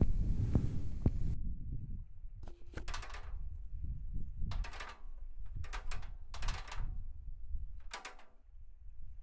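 Soundtrack of low throbbing pulses, about two a second, that stop about a second in. A low rumble is left, with five short swishing bursts over it.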